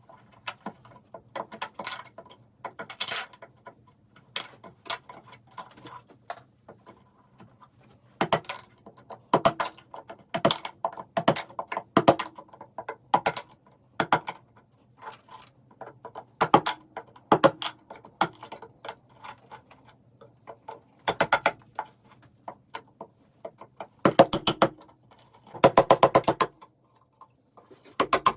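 Irregular clicks, knocks and scrapes of hand work on an old axe, over a faint steady low hum; a fast run of scraping strokes near the end.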